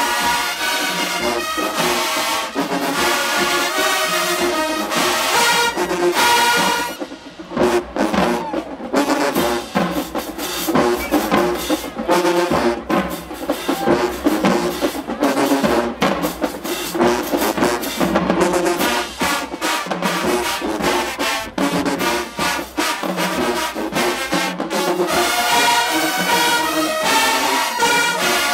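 University marching band playing: trumpets and trombones over the drums. About seven seconds in the horns cut out briefly, the drums carry a long stretch of sharp hits, and the full brass comes back in near the end.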